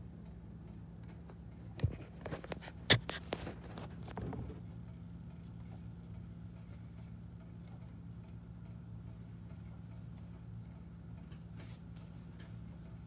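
Handling noise from a phone being shifted against a window screen: a few sharp clicks and knocks about two to four seconds in, over a steady low hum.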